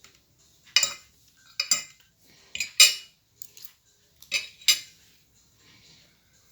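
A metal spoon clinking and scraping against a plate during a meal, in about eight short, sharp clinks at irregular intervals.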